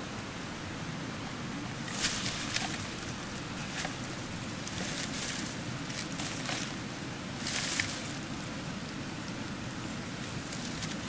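Dry bamboo leaves rustling and crackling in short irregular bursts as hands rummage through leaf litter, over a steady background hiss.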